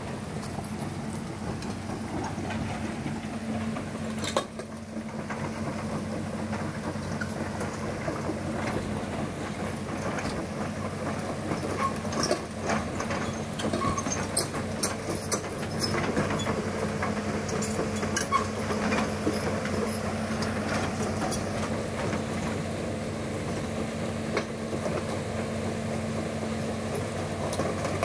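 Diesel engine of a light Isuzu truck running steadily as the truck crawls through a shallow, rocky river, with scattered short knocks over the hum.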